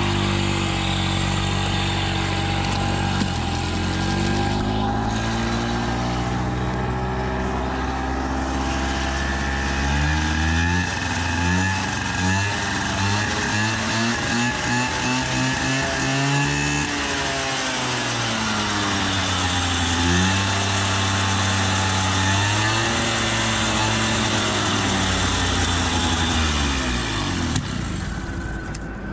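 Peugeot 103 moped's 49cc two-stroke engine running and being revved up and down several times, its pitch rising and falling. Near the end the throttle closes and the exhaust pops.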